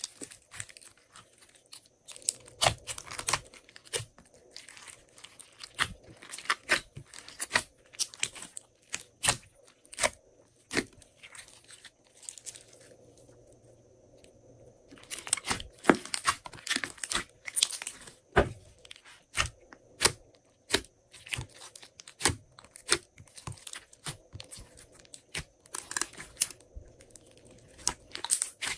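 Glossy slime being kneaded and stretched by hand, giving irregular sticky pops and crackles, with a brief lull about halfway through.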